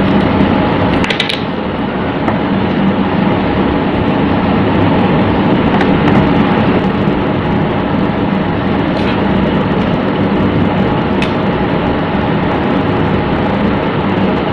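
Steady, loud background noise with a low hum, like a running machine or traffic, with a few light clicks scattered through it.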